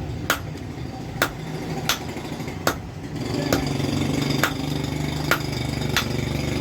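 Hammer blows on metal at an even pace, about one every 0.8 s, over a steady motor hum that grows louder about three seconds in.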